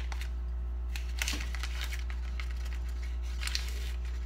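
Paper baking-powder sachet crinkling and rustling while a teaspoon is scooped into it, with short scrapes and clicks about a second in and again near the end. A steady low hum lies underneath.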